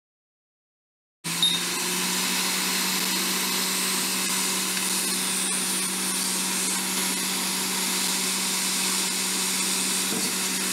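Hot air rework station (Quick 861DW) blowing a steady stream of hot air: an even hiss of airflow over a low fan hum, starting abruptly about a second in. It is heating a smartphone's small sub-board to soften the adhesive holding it down.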